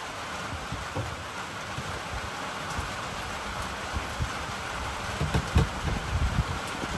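Steady rain falling, an even hiss throughout. A few short low thumps come through it, one about a second in and several near the end.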